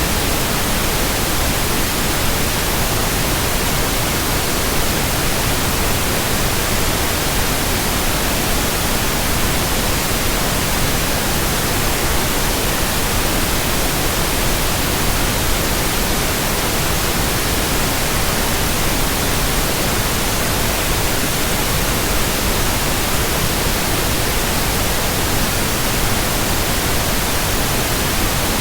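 Steady white noise: an even, unchanging hiss spread across all pitches, with no hum, tones or gusts.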